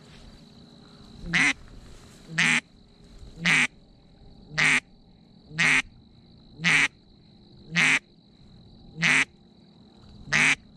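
Single duck quacks, loud and evenly spaced about one a second, nine in all. A faint, steady high thin tone runs behind them.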